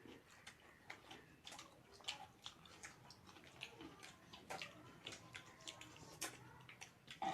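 Faint, irregular clicks and smacks of people eating: chewing and food being handled on plates.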